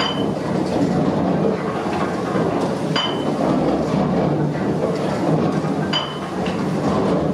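Large gear wheels of a grinding mill's drive turning and meshing: a steady mechanical clatter and rumble, with a sharp metallic clink about every three seconds.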